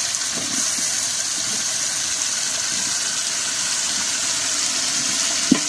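Chopped tomatoes and browned onions frying in hot oil in a large aluminium pot: a steady sizzling hiss, with an iron ladle scraping through them and a sharp knock near the end.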